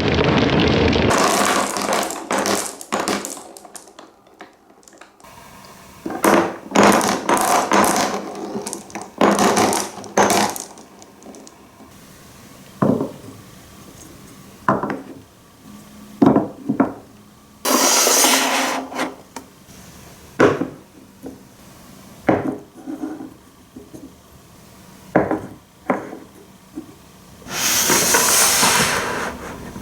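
Marbles rolling and rattling along a wooden marble run of wooden slopes and a corrugated wooden plate, with sharp wooden clacks and knocks as they drop and strike the blocks. There are longer rattling runs about a third of the way in and again near the end.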